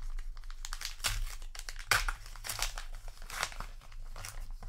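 Foil-lined trading card booster pack being torn open and its wrapper peeled back: a run of crinkling and tearing rustles, loudest about two seconds in.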